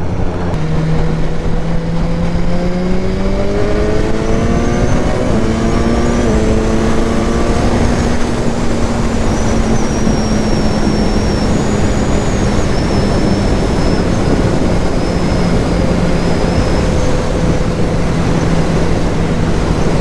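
BMW S1000R inline-four engine running under way, with steady wind noise on the microphone. The engine note climbs in steps during the first several seconds as the bike pulls through the gears, then holds steady at a cruise.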